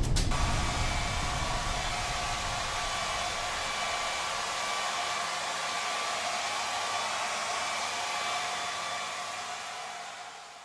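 A steady rushing hiss with a few faint high held tones, slowly fading away near the end: a sound-design noise effect in a film soundtrack.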